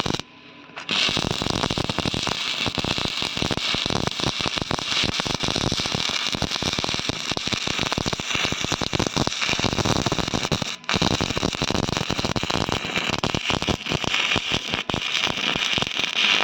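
Electric arc welding on a broken steel tractor plate: a dense, continuous crackle of the arc. It strikes about a second in and breaks off briefly near eleven seconds.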